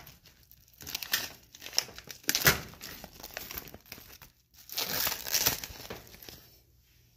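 Packaging around a prime rib roast being torn open and crinkled by hand, in irregular bursts with a sharp tear about two and a half seconds in.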